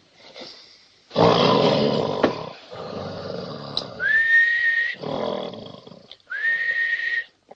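A person snoring loudly in long noisy breaths, alternating twice with a whistle that slides up and then holds one steady note.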